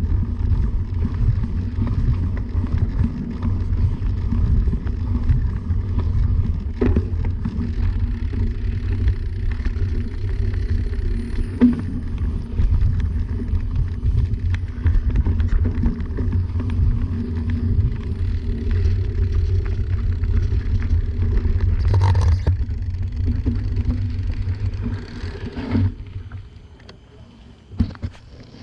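Mountain bike riding over a dirt forest trail: a steady low rumble of knobby tyres and bike movement, with a few sharp knocks from bumps. The noise dies down about three seconds before the end as the bike comes to a stop.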